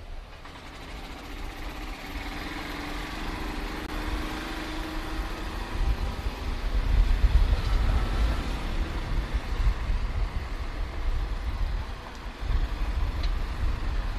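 A motor vehicle passing close by: its engine hum swells to a peak about halfway through and then fades. Low wind rumble on the microphone of the moving bike runs underneath.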